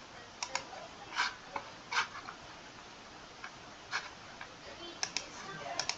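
Computer mouse clicking: about ten short clicks spread unevenly, several coming in quick pairs like double-clicks.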